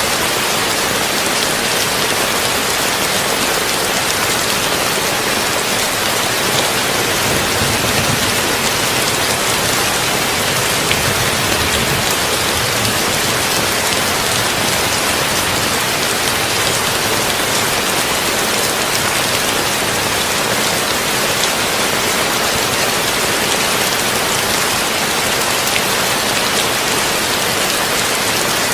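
Heavy rain falling on a tin roof, a steady dense hiss mixed with brown noise. A faint low rumble swells slightly between about seven and thirteen seconds in.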